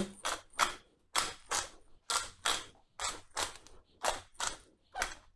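Hand-twisted pepper mill grinding black pepper, a steady run of short crunching clicks about two to three a second.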